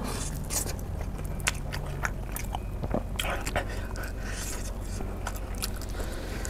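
Close-miked biting into and chewing sauce-coated fried chicken, with many short, sharp crackles over a steady low hum.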